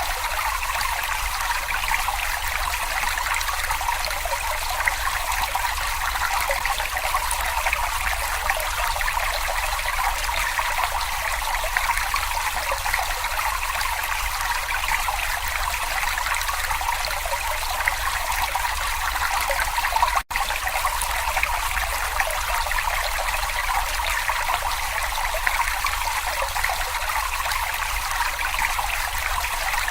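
Shallow brook babbling and trickling steadily over stones, with a momentary drop-out about twenty seconds in.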